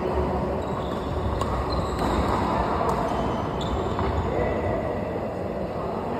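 Badminton rally: about four sharp racket strikes on the shuttlecock, roughly one a second between one and four seconds in, with a few short high squeaks. A steady low rumble of hall noise runs underneath.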